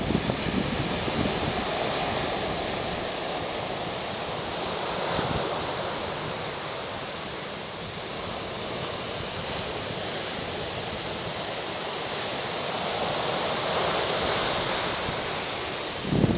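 Wind buffeting the microphone over the steady wash of ocean surf, slowly swelling and easing, with strong low gusts near the start and just before the end.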